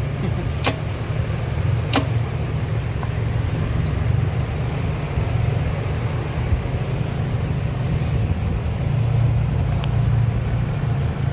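Steady low hum with a faint haze of noise, broken by a few short sharp clicks, about a second in, two seconds in and near the end.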